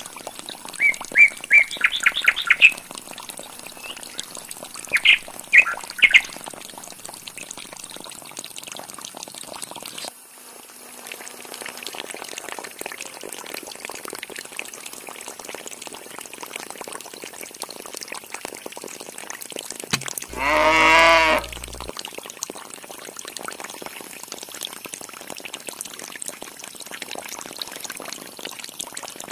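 Water trickling and splashing from a small pump's outlet tube into a water tank, with birds chirping in short bursts during the first six seconds. About twenty seconds in, a loud call with a wavering pitch lasts under two seconds.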